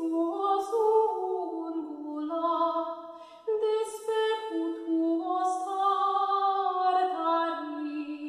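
Unaccompanied solo voice singing a slow melody that moves in small steps between long held notes.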